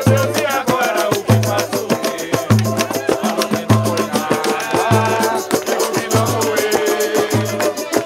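Live samba played by a small roda: pandeiro and hand drums keeping a dense, steady samba rhythm, a deep drum note about every second and a quarter, with cavaquinho and banjo strumming and voices singing.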